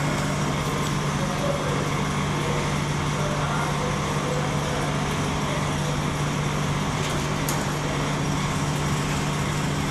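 Commercial puri-making machine running with a steady electric hum over an even whirring hiss, with one faint click about seven and a half seconds in.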